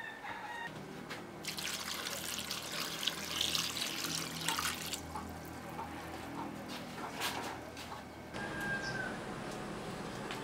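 Water pouring into a metal pot of sliced guavas for about three and a half seconds, then a few drips and small splashes as it settles.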